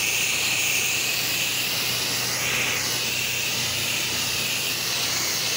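Pressure washer spraying water, a steady hiss with a faint steady low hum underneath, as the house is wet down before the chemical goes on.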